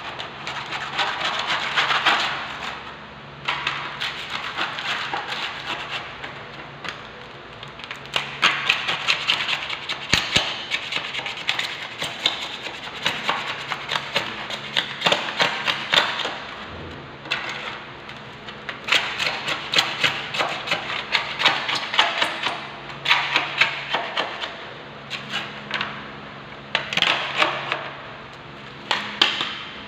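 Gritty scraping and tapping of masonry work on cement mortar and marble, coming in repeated bursts with sharp clicks, over a steady low hum.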